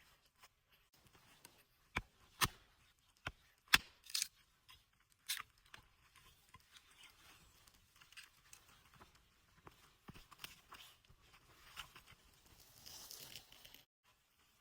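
A run of sharp snaps and knocks, the loudest bunched between about two and five and a half seconds in, then softer scattered crackling and a brief hiss near the end.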